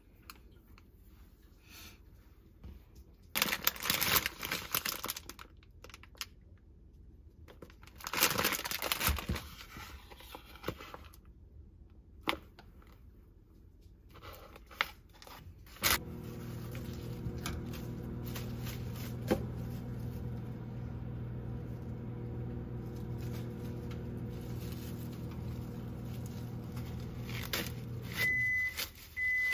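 Plastic food packaging crinkling as it is torn open, with a few clicks. Then a microwave oven runs with a steady hum for about twelve seconds and beeps near the end.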